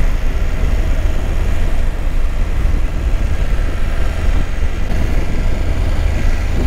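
Motorcycle riding along at steady speed: a steady wind rumble on the rider's microphone with the bike's running and road noise underneath.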